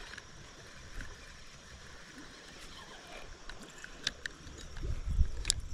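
Handling noise from a spinning reel and rod held in a kayak: a few light clicks about four seconds in and again near the end, and low knocks and rumbles in the last second.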